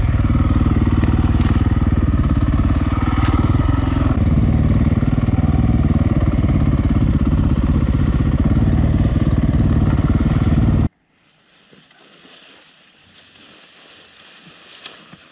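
Single-cylinder four-stroke KTM EXC enduro dirt bike engine running steadily along a trail, heard from the rider's helmet camera with wind on the microphone. The sound cuts off abruptly about eleven seconds in, leaving quiet bush ambience.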